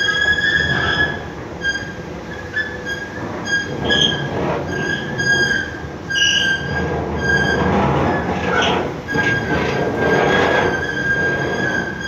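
A metro-station escalator running with a loud, high-pitched squeak that drops in and out, over a noisy mechanical rumble that swells for a few seconds near the end.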